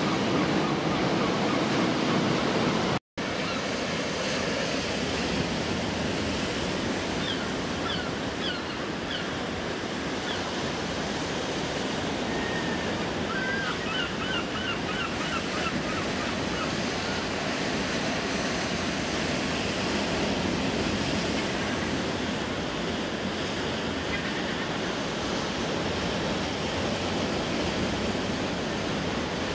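Sea surf breaking and washing over a boulder shore, a steady rush. The sound drops out for an instant about three seconds in. Runs of short high chirps come between about 7 and 16 seconds in.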